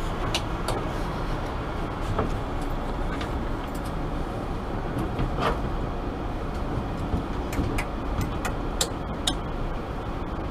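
Steady rumble and hiss of cockpit background noise, with scattered sharp clicks as switches on the centre console are worked, two of them louder shortly before the end.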